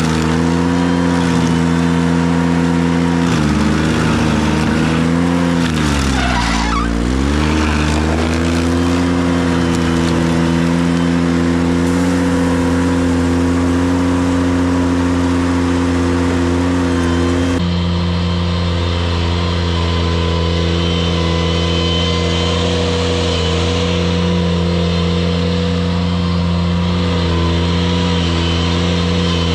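Ventrac compact tractor engine running steadily at high speed while driving a KC220 stump grinder. About five to eight seconds in, its pitch sags and recovers as the engine is loaded down. Around eighteen seconds in, the higher hiss drops away abruptly.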